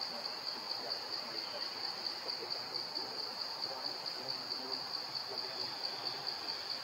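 A steady, high-pitched insect chorus, pulsing evenly without a break, with a faint murmur lower down.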